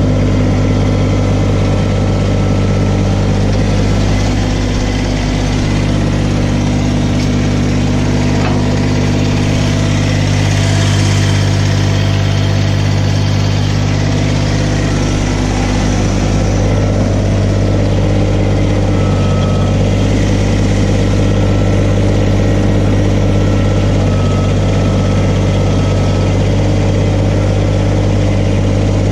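Kubota BX1860 compact tractor's three-cylinder diesel engine idling steadily while it warms up.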